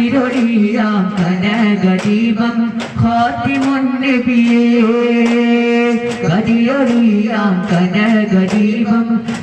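Malayalam devotional song in praise of the Prophet (a madh song) sung with long held notes, over repeated strikes of daf frame drums.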